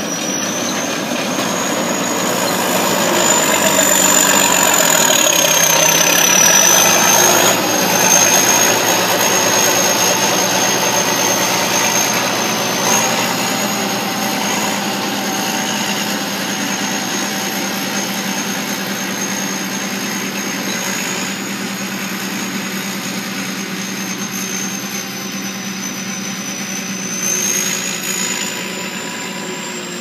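Tracked rice combine harvester running as it cuts through the crop: a continuous engine and threshing-machinery din with a steady high whine above it. Loudest a few seconds in, then slowly fading as the machine moves away.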